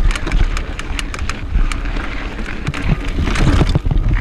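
Mountain bike ridden hard up a rocky trail: wind buffeting the microphone, with a quick, uneven run of clicks and knocks from the tyres striking rocks and the bike's chain and frame rattling.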